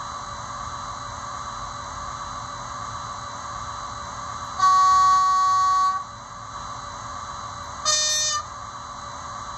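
Sound decoder of a Märklin HO-scale Railjet Taurus model locomotive sounding its horn: a loud blast about a second and a half long near the middle, then a short, higher toot of the switching horn near the end, over a steady hum.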